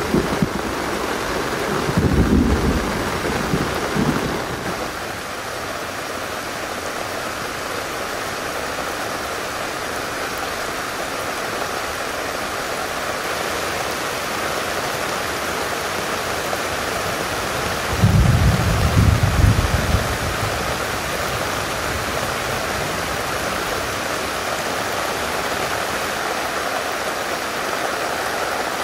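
Steady heavy rain falling, an even hiss throughout. Brief low rumbles come about two seconds in and again for a couple of seconds near the middle.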